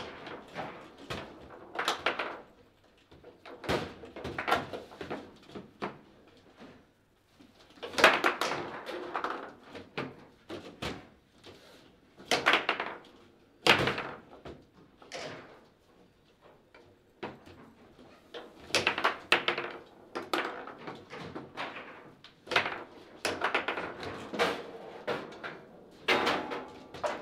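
Table football in play: the ball is struck by the rod-mounted player figures and knocks against the table walls, and the rods clack. The result is an irregular run of sharp knocks and bangs, some with a short ringing tail, with brief pauses between rallies.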